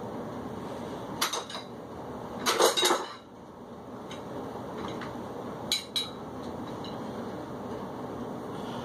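Metal dumbbell plates clinking and knocking together in three short clusters: about a second in, around two and a half seconds, and near six seconds. A steady hum runs underneath.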